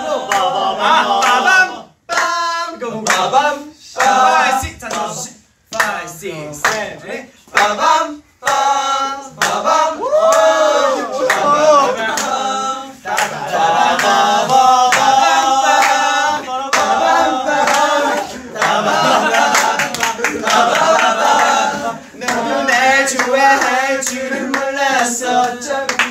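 A group of young men singing and vocalizing a cappella, with hand clapping throughout.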